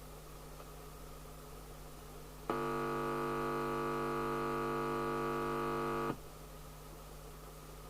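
Steady buzzing hum from the CB radio's loudspeaker as a finger is put on the audio amplifier's input. It starts abruptly about two and a half seconds in, lasts about three and a half seconds and cuts off sharply, over a fainter steady hum that runs throughout.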